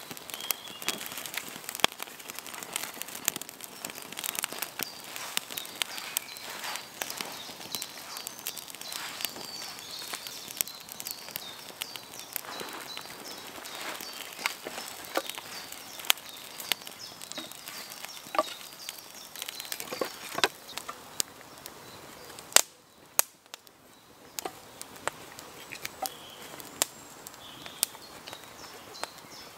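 Newly lit campfire of birch bark and dry twigs crackling as it catches, with many sharp, irregular pops and snaps.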